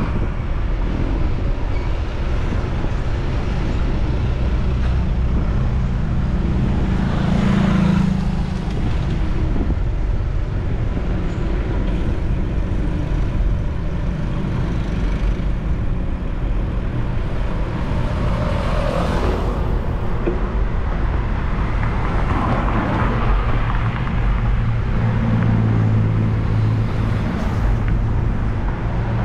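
City road traffic heard from a moving bicycle: a steady low rumble of engines and tyres, with several motor vehicles passing close and swelling louder now and then.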